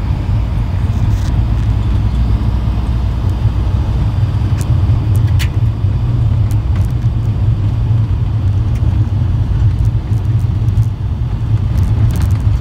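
Steady low rumble of a moving vehicle's engine and tyre noise, heard from inside the cabin.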